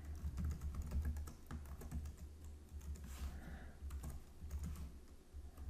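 Typing on a computer keyboard: a run of quick, irregular key clicks over a steady low hum.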